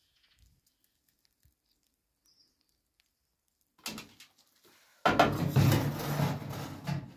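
Near silence, then a metal ash shovel scraping ashes out of the firebox of a sheet-metal wood-burning heater and into a metal basin. A short scrape about four seconds in is followed by about two seconds of loud, dense scraping and rattling.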